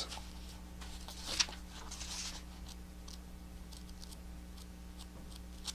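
Soft rustling of Bible pages being leafed through by hand, with one slightly louder rustle about a second and a half in, over a faint steady electrical hum.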